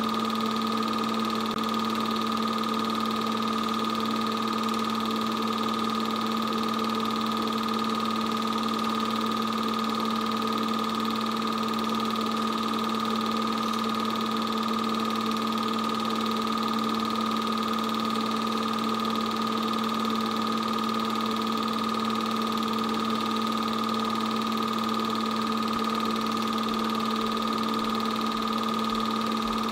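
8mm film projector running steadily: a constant, even mechanical hum and whir that does not change.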